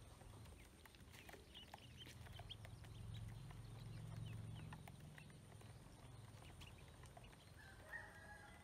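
Faint scattered small clicks of ducklings' bills pecking feed off a plastic basin, with a few faint peeps and one short chirp near the end. A faint low hum swells and fades in the middle.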